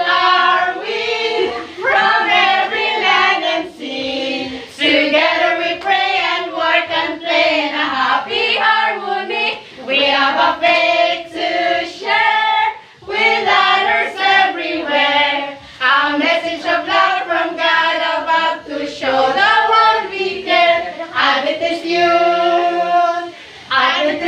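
A group of young men and women singing a song together, with short breaks between phrases.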